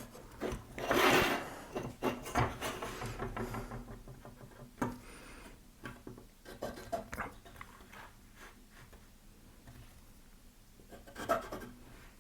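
Scattered workbench handling sounds: rubbing and scraping on wood with light knocks, as hole positions are marked out on a wooden strip. A longer scrape comes about a second in and a sharper knock near the end.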